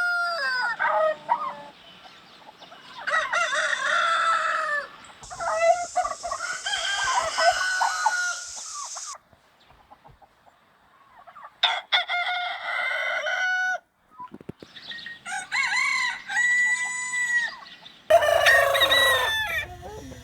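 Roosters crowing, about six long cock-a-doodle-doo crows one after another with short pauses between them. Several crows start or stop abruptly.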